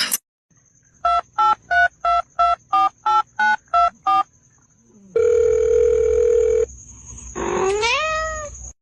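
Telephone keypad tones: about ten short beeps, roughly three a second, followed by a steady tone lasting about a second and a half. Near the end comes a short call that rises in pitch.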